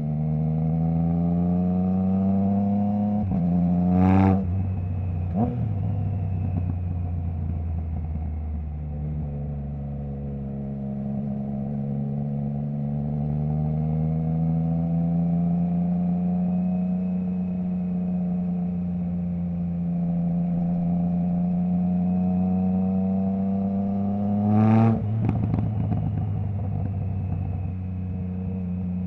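Triumph Trident 660's three-cylinder engine through a Zard full exhaust with the baffle removed, riding under load: the note climbs, drops at a gear change and climbs again, then pulls slowly and steadily higher for a long stretch. Two loud sharp cracks come about 4 s and 25 s in, the second followed by the revs falling with a few smaller crackles.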